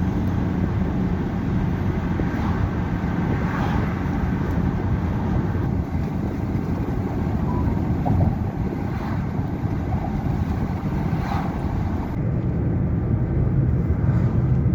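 Steady low drone of a vehicle running, with a faint even hum in it.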